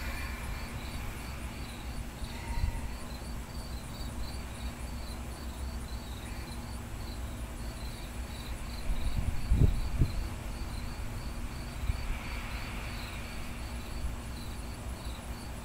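An insect chirping steadily in an even rhythm, about three chirps a second, over a low outdoor rumble. A couple of low thuds come about nine to ten seconds in.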